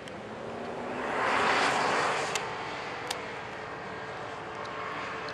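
Off-road SUV's engine working hard as it drives through soft dune sand, swelling louder about a second in and then holding steady, with two sharp clicks in the middle.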